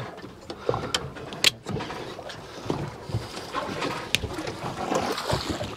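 Water slapping against the hull of a small boat at sea, with scattered clicks and knocks from fishing gear being handled; the sharpest click comes about a second and a half in.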